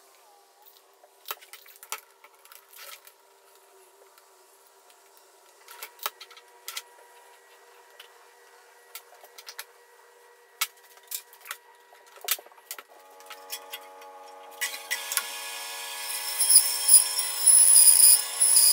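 Light clicks and taps of a tape measure and pencil handled on a wooden workbench. About thirteen seconds in a band saw starts running, and a couple of seconds later its blade cuts into a wooden board with a loud hiss and a high whine.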